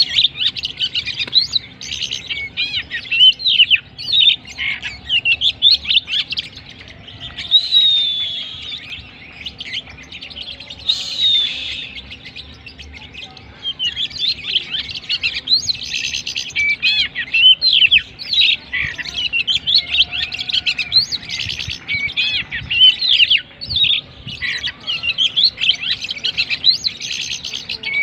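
Oriental magpie-robin (kacer) singing a rapid, varied song of whistles, chirps and trills. The song thins to a few longer whistles around the middle, then packs densely together again.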